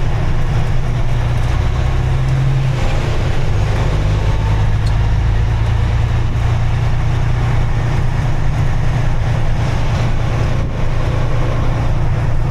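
Vehicle engine and road noise while driving, a steady low drone whose engine note shifts about three seconds in.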